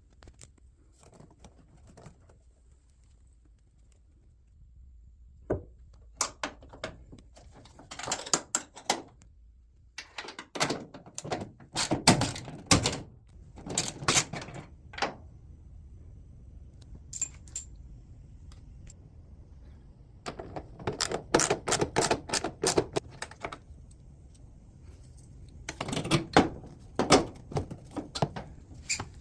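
Rapid metallic clicking and clattering in several bursts of a few seconds each, with scattered single clicks between: hand work with tools and parts on a washing machine during a suspension replacement.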